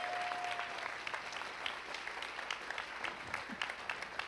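Audience applauding with many dense hand claps, and a held cheer from the crowd ending about a second in.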